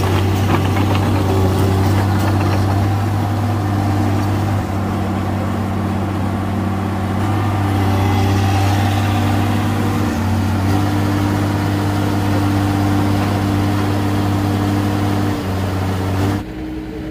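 Komatsu PC200 hydraulic excavator's diesel engine running steadily at close range, a deep even hum with small shifts in note. The sound drops off suddenly near the end.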